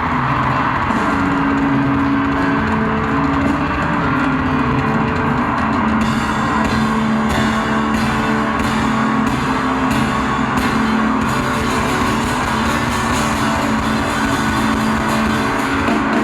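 Rock band music with a drum kit and guitar playing steadily. From about six seconds in, sharp drum or cymbal hits come roughly twice a second for several seconds.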